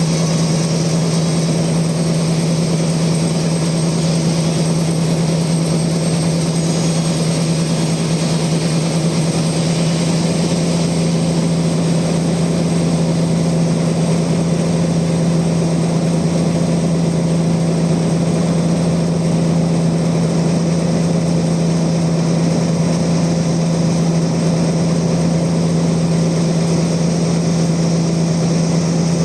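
Band sawmill running with a loud, steady, unchanging machine drone and a strong low hum.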